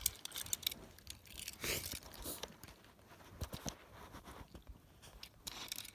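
Handling noise of toy car packaging: scattered light clicks, crinkles and rustles of plastic and card.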